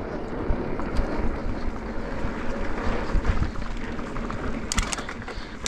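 Mountain bike rolling over a rough dirt trail: a steady rumble of tyres and chattering frame and suspension, with scattered knocks and a quick run of sharp clicks near the end.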